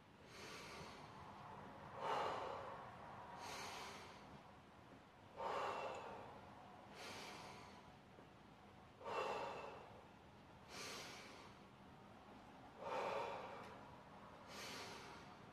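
Heavy breathing of a man straining through dumbbell shoulder presses: about every four seconds a strong breath, followed a second and a half later by a softer one, in time with each rep.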